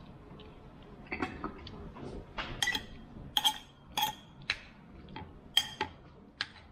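Metal spoon clinking and scraping against a ceramic plate while scooping up noodles. The clinks are irregular, start about a second in, and ring briefly.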